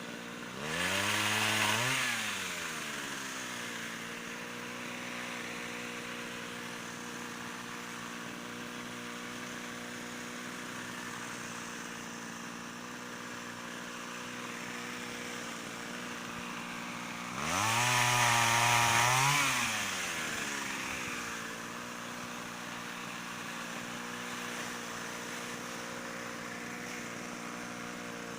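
Pole saw driven by a Mitsubishi TL26 two-stroke brush-cutter engine, idling steadily and revved up twice for two or three seconds each, about half a second in and again about seventeen seconds in, before dropping back to idle.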